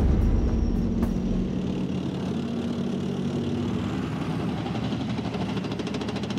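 Leopard 2 main battle tank driving, its V12 diesel engine running with a steady low hum.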